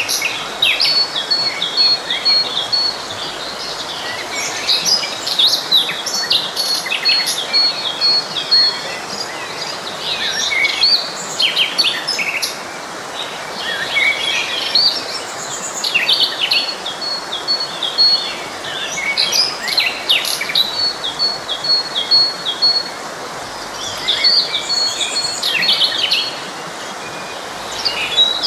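Several birds singing and chirping over the steady rush of a flowing stream. One bird repeats a fast run of identical high notes several times.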